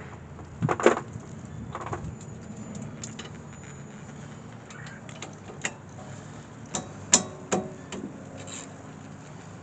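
Scattered metallic clicks and clanks of sockets and hand tools being handled while working on the brake caliper bolts, a few sharp knocks spread through with a faint steady hum underneath.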